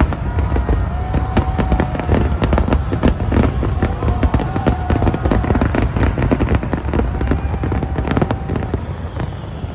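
Aerial fireworks display: a dense, rapid barrage of shell bursts and crackles over a deep rumble, thinning out near the end.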